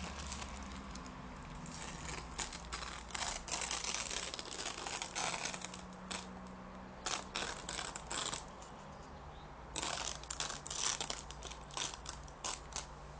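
Crinkling and crackling handling sounds in irregular clusters of quick strokes, starting about two seconds in, pausing briefly past the middle and coming back densely, over a faint steady low hum.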